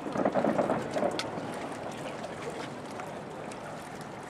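Murmur of indistinct voices from a spectator crowd, clearest in the first second, over a steady rush of outdoor noise and wind on the microphone, with one faint sharp crack about a second in.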